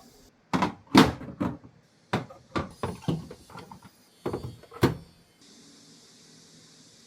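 About a dozen irregular knocks and clunks of hard objects being handled, bunched in the first five seconds, followed by a faint steady hiss.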